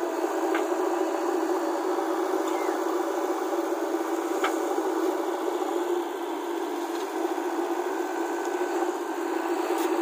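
JCB 3DX Plus backhoe loader's diesel engine running steadily under load while the backhoe arm digs and lifts soil. There are a couple of faint clicks.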